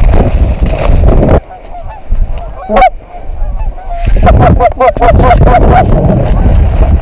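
Geese honking: a single honk about three seconds in, then a quick run of honks between about four and six seconds, over low rumbling noise.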